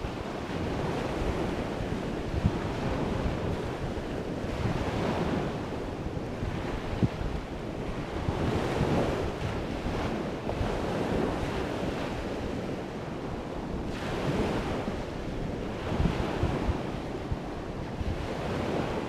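Wind buffeting the microphone over surf washing onto the beach, the rush swelling and easing every few seconds.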